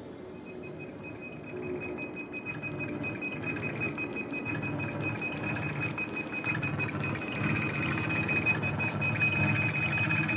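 Electronic noise music swelling steadily in loudness: repeated high chirping glides over a steady high tone and a low rumble.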